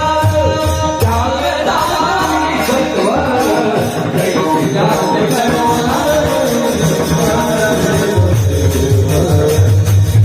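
Singing accompanied by a steady beat of jingling hand percussion and a drum.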